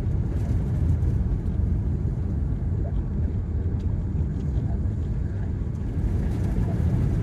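Four-wheel-drive vehicle driving slowly, its engine and running gear making a steady low rumble.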